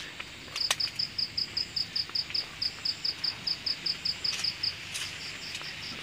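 Cricket chirping at night: a fast, even train of short high chirps, about five a second, with a brief pause near the end. A single sharp click sounds near the start.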